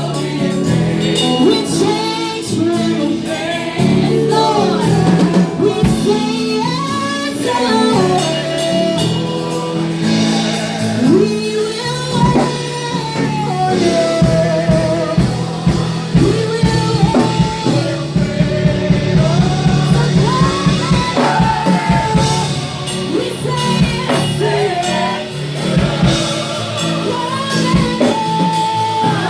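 Live gospel praise and worship music: a singer's voice sliding through ornamented runs over a band with drum kit and sustained bass and keyboard chords.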